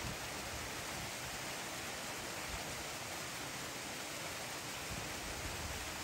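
Steady, even hiss of background noise with a few faint low thumps.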